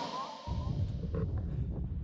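Electronic music fades out, and about half a second in a steady low rumble begins: inline skate wheels rolling over asphalt.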